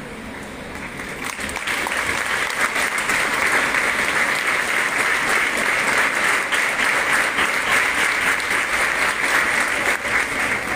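Audience applauding: many hands clapping, swelling over the first couple of seconds, holding steady, then easing off near the end.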